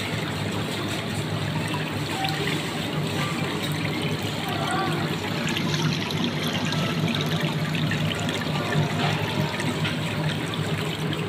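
Steady trickling and splashing of water running down over tiered live-seafood display tanks into the water below.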